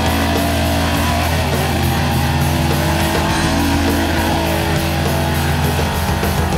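Rock soundtrack music with electric guitar, loud and steady throughout.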